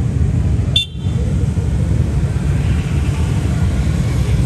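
Enduro dirt bike engines running and revving as riders pull away from the race start, a dense low rumble, with a faint rising whine in the second half. A brief sharp click about a second in.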